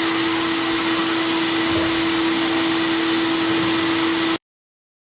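Media blast cabinet running: the loud, steady hiss of abrasive blasting over a steady motor hum. It cuts off suddenly a little over four seconds in.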